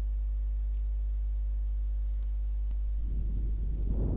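Steady electrical hum from the recording chain, with a few faint clicks and a short low noisy patch near the end.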